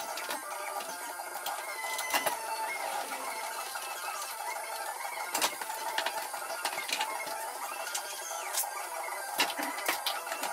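Background music, with a few sharp clicks.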